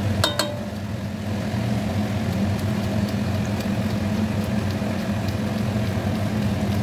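Metal spatula stirring and scraping vegetables in a steel kadai, with a pair of ringing metal clinks about a third of a second in. Under it runs a steady low kitchen hum.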